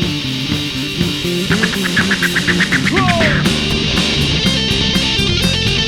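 Live rock band playing an instrumental passage: electric guitar with bent, sliding notes over bass and drums.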